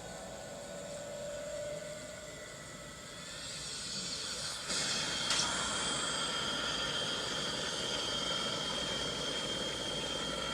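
A monster sound effect: a steady hissing rush with high whining tones. It swells from about three seconds in, jumps abruptly louder a little before the midpoint, then holds with a steady high whine.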